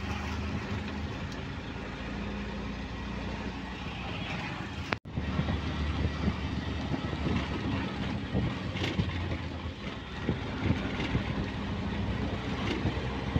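Auto-rickshaw engine running steadily as it drives, heard from inside the open cabin along with road noise. The sound breaks off for a moment about five seconds in.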